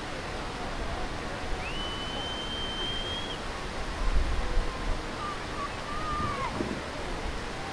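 Steady rushing of white water pouring over a river weir. A high, steady whistle-like tone sounds for under two seconds about two seconds in, faint distant voices come later, and a brief low rumble comes about four seconds in.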